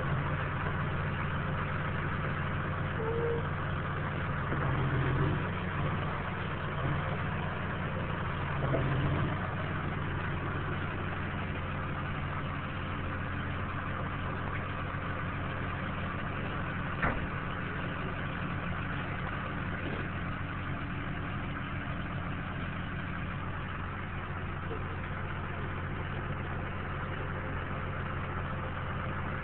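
Diesel engine of a forestry grapple skidder running steadily at idle, with one sharp click a little past halfway.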